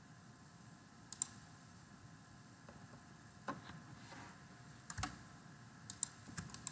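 Computer mouse clicking: several sharp, separate clicks, some in quick pairs and more frequent near the end, over faint room tone.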